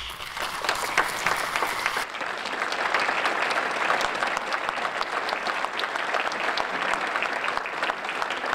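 Audience applauding. The applause breaks out all at once and carries on steadily as the dense clapping of many hands.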